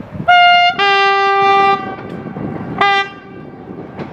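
Train horn sounding from an approaching train: a short high note, straight into a longer low note about a second long, then one short low blast near the end.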